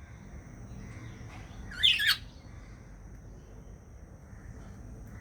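A budgerigar gives one short, wavering call in two quick parts about two seconds in, over a faint steady high tone.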